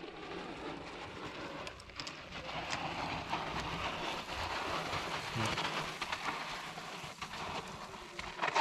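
Mountain bike tyres sliding and rolling down loose sandy dirt and gravel: a gritty hiss with scattered clicks of stones, swelling through the middle and easing off near the end.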